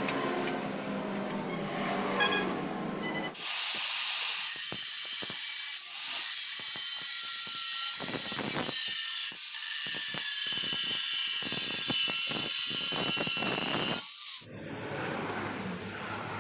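Angle grinder with a thin cutting disc slicing through a steel square tube: a loud, steady, hissing shriek that starts about three seconds in, dips briefly twice and stops a couple of seconds before the end.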